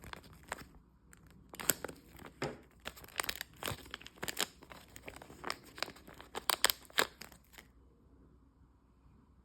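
Irregular crinkling and sharp clicking handling noises that stop about eight seconds in.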